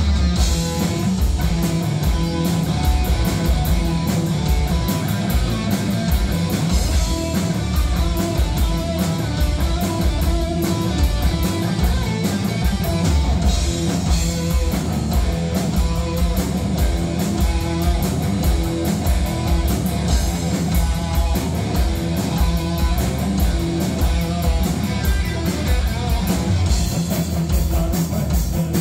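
Live rock band playing: electric guitar, electric bass and drum kit, with a steady drum beat.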